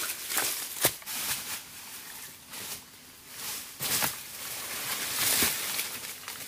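Irregular rustling and crackling, with a few sharp knocks: one about a second in and two more near four and five and a half seconds in.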